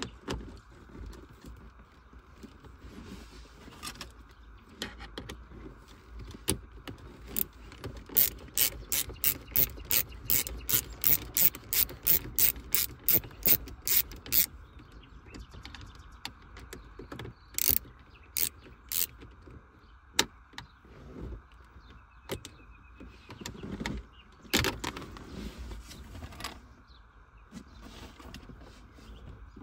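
A run of sharp mechanical clicks, about two a second, for some seven seconds, then a few more single clicks and knocks.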